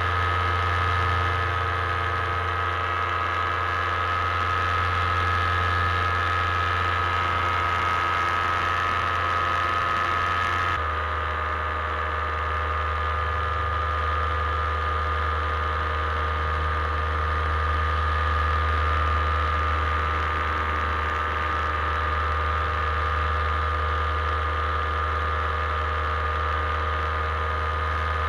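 Paramotor engine and propeller running steadily in flight, an even drone with a high steady whine. About eleven seconds in the tone changes abruptly, then holds steady again.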